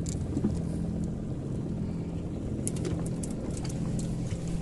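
A motor running steadily: an even low hum with a few faint clicks about two and a half seconds in.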